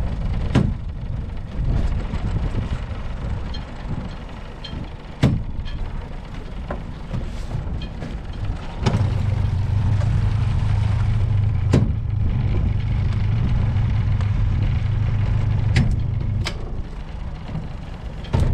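Small boat's outboard motor running with a low rumble, settling into a steadier hum from about nine seconds in until near the end. Several sharp knocks, about six in all, from gear and the crew moving in the boat.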